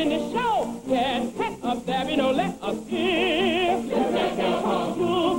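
A woman sings a Broadway show tune in full voice over musical accompaniment. Her voice swoops through the phrases, and about three seconds in she holds a note with a wide vibrato.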